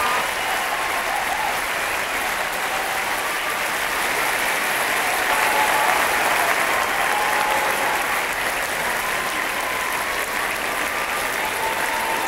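Large concert-hall audience applauding steadily in a standing ovation: dense, even clapping throughout.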